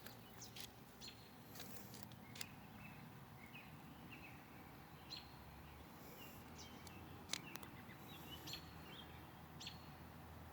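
Faint outdoor quiet with small birds chirping in short, scattered calls and a few faint clicks, the sharpest about seven seconds in.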